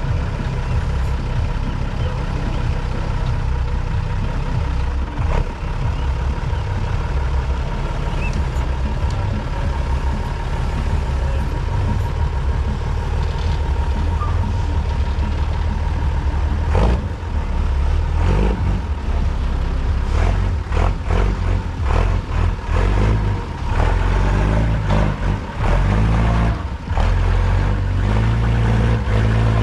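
Off-road trial truck's engine labouring under heavy load, steady at first. From about halfway it turns uneven, revving up and easing off again and again as the truck crawls up a steep dirt bank.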